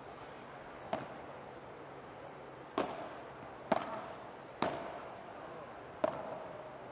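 Padel rally: the ball popping off the players' solid paddles and the court, five sharp knocks spaced about a second apart, each with a short ring.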